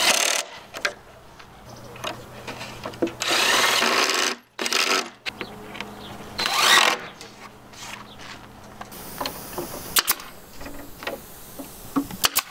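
Cordless drill driving screws into a plywood cabinet box in short runs, the longest about a second and a half. A couple of sharp clicks near the end.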